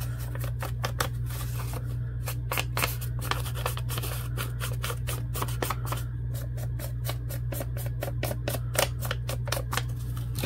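Ink blending tool dabbed and rubbed along the torn edges of a paper scrap, inking them: a quick, uneven run of taps and scuffs, over a steady low hum.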